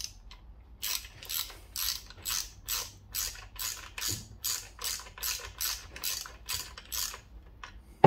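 Hand socket ratchet clicking on each back-stroke, about two strokes a second, as it undoes the selector drum retaining plate bolts on a motorcycle gearbox. The clicking stops about a second before the end.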